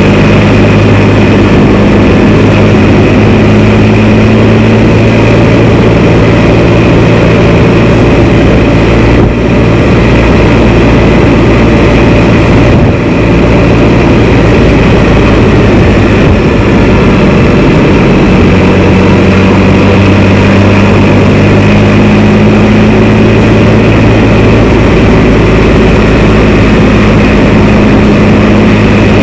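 Can-Am Spyder three-wheeled motorcycle's engine running steadily on the move, a constant low hum under loud rushing noise, with two brief dips about nine and thirteen seconds in.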